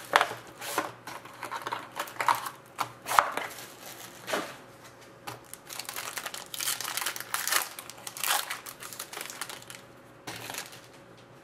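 Plastic shrink wrap and a foil trading-card pack crinkling and tearing as they are pulled open by hand. The crackling comes in irregular clusters, busiest in the first few seconds and again a little past the middle, and thins out near the end.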